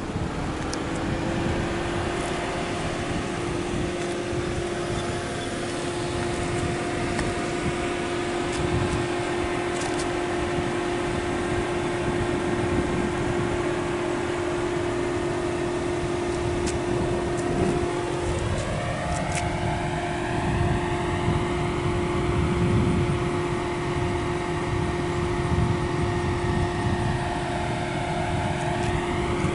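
Light propeller aircraft engine droning steadily overhead, one even tone whose upper sound slowly sweeps as the plane moves. Wind buffets the microphone underneath.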